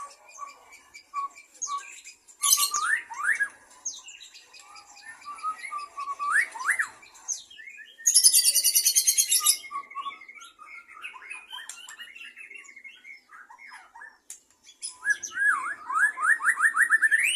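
White-rumped shamas chirping and calling in bursts of short rising whistled notes, with a loud, rapid high trill about halfway through and a quick run of rising notes near the end.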